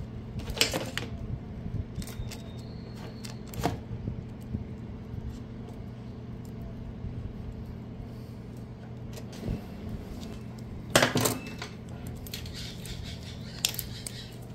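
Small metal parts and wires of a plasma-cutter hand torch clicking and clinking as they are handled. The light knocks are scattered, with the loudest cluster about two-thirds of the way through, over a steady low hum.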